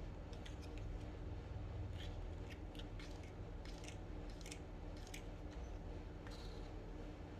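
A string of small, sharp clicks and crinkles, irregularly spaced, from a toy set and its plastic packaging being handled and unpacked by hand.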